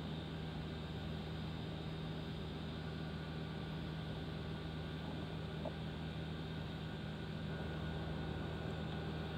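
A steady low electrical or mechanical hum with a few fainter steady tones over a constant hiss; a faint higher whine grows a little stronger near the end.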